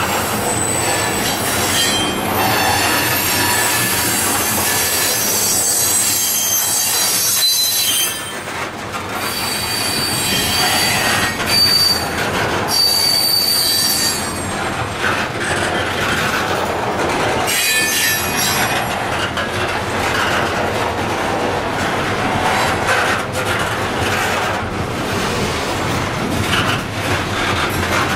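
Freight covered hopper cars rolling slowly along street-running track, their steel wheels squealing shrilly against the rail, with a few knocks from the wheels and couplers.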